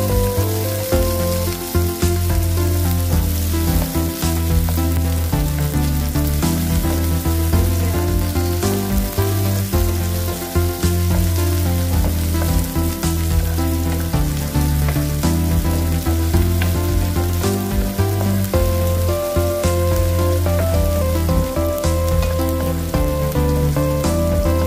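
Chopped onions sizzling in oil in a frying pan, stirred with a wooden spoon, with crackles throughout. Background music with a low bass line plays over it and is the loudest sound.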